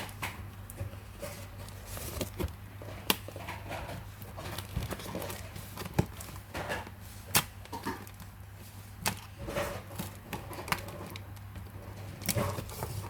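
Scattered sharp clicks and taps from objects being handled, irregular and a second or more apart, over a steady low hum.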